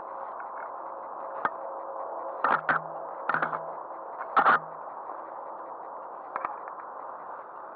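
Handling noise of a fly reel and cork rod grip right against the microphone: a string of short knocks and rubs, the loudest about four and a half seconds in. Under them runs a steady hiss with faint rapid ticking.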